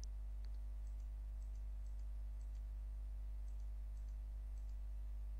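Faint computer mouse clicks, each a quick double tick of press and release, repeated irregularly about once a second, over a steady low hum.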